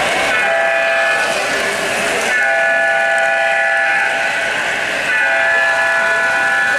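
Electronic horn sound from an O-gauge model diesel locomotive's sound system: three held blasts of a multi-note air-horn chord, the middle one the longest.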